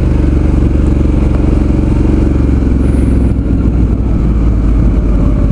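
Suzuki V-Strom 650's V-twin engine running at a steady pace while the motorcycle rides along, heard from on the bike.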